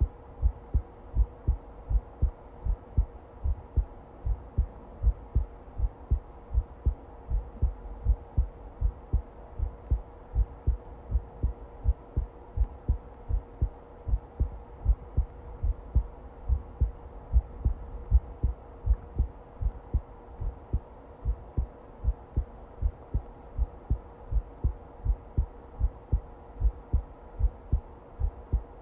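Heartbeat: a steady, regular run of low thumps, with a faint steady hum underneath.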